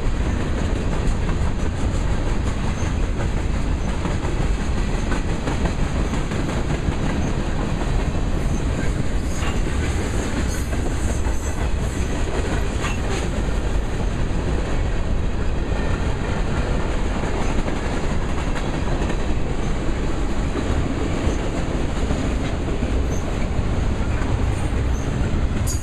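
Freight train cars rolling past: a steady rumble of steel wheels on rail with the clickety-clack of wheels over rail joints. A few brief high wheel squeaks come about halfway through.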